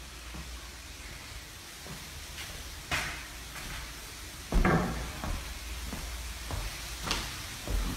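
A few separate knocks and clunks over a low steady hum, the loudest about four and a half seconds in.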